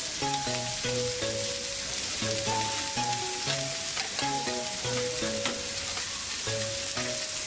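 Marinated pork loin sizzling on the hot grate of a gas grill as pieces are laid down with tongs, a steady hiss. A melody of held notes plays over it.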